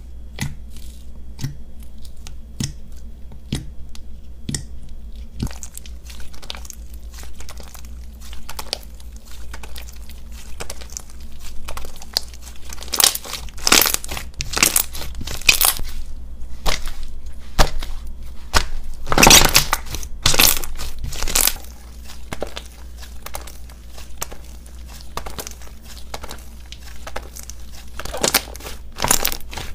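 Thick white fluffy slime squeezed, kneaded and stretched by hand, giving a dense run of small crackling pops and squelches, with louder clusters of crackles about halfway through.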